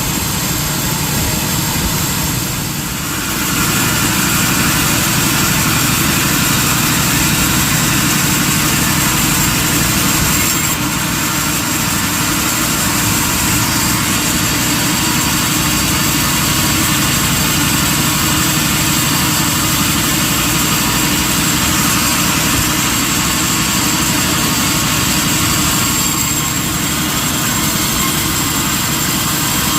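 Industrial sawmill machinery running steadily and loudly, a dense mechanical noise with a faint high whine, dipping briefly about three seconds in.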